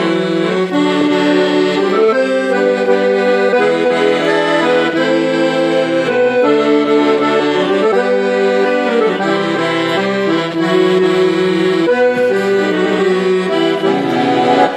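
Bayan, a Russian chromatic button accordion, playing a melody over sustained chords.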